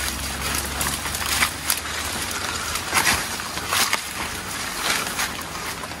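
Footsteps pushing through dense brush on an overgrown trail: irregular rustling and crackling of leaves and twigs, with a low rumble on the microphone in the first second.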